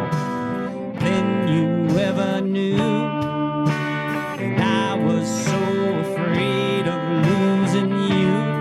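Guitar playing an instrumental break in a country song, strummed chords under held lead notes, some of which bend up and down in pitch.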